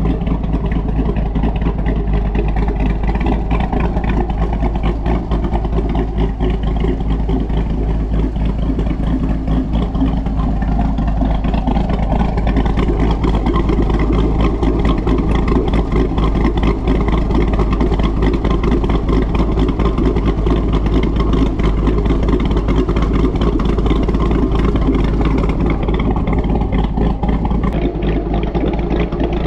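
2015 C7 Corvette's 6.2-litre LT1 V8 with a Texas Speed Stage 2 camshaft, idling steadily through its quad-tip exhaust with a pulsing beat.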